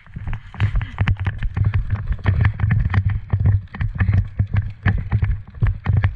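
Running footsteps thudding about twice a second, with sharp rattling clicks of gear over them.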